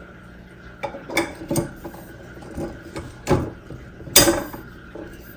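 Hard plastic animatronic parts clicking and knocking as a leg is fitted and snap-locked into the base: about half a dozen sharp knocks, the loudest about four seconds in.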